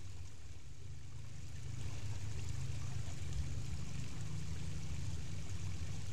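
Shallow rocky creek running: a steady rushing of water with a strong low rumble, a little louder from about two seconds in.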